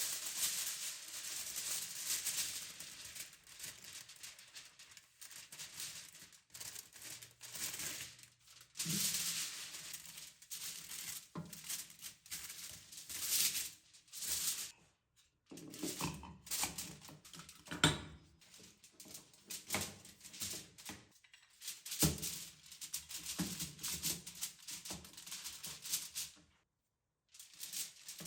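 Hand scrubbing: a surface scoured in uneven rasping strokes, broken by a few short knocks and brief pauses.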